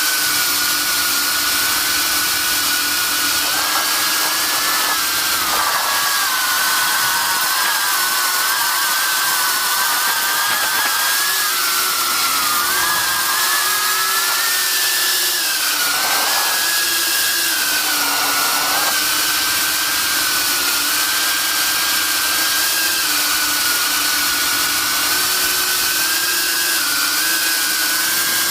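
Eachine Cvatar 4S FPV quadcopter's brushless motors and propellers whining in flight, heard from the camera carried on board. The pitch wavers up and down steadily with the throttle, with dips and rises around the middle.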